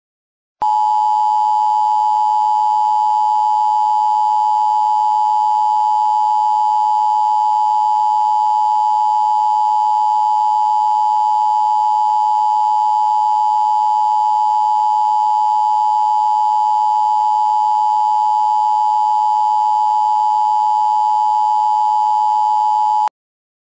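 Emergency Alert System attention signal: a loud, steady two-tone alarm of two close pitches sounding together, held unchanged for about 22 seconds. It starts and cuts off abruptly.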